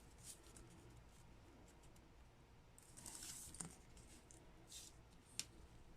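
Near silence, with a few faint clicks and a brief soft rustle of small parts being handled.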